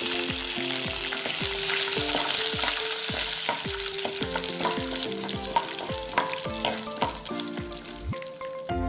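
Fresh curry leaves sizzling in hot oil with peanuts, dals and mustard seeds in a nonstick pan, stirred with a spatula: the tempering stage. The sizzle thins out near the end, and background music with a steady beat plays under it.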